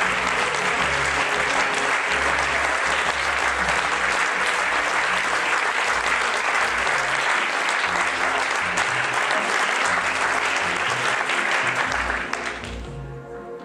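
Audience applauding over music. The applause dies away near the end, leaving the music on its own.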